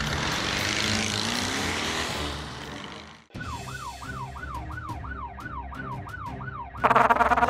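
An emergency-vehicle siren sound effect wailing up and down about two and a half times a second, over background music. It is preceded by about three seconds of a noisy rushing sound that cuts off suddenly, and a loud burst of sound comes near the end.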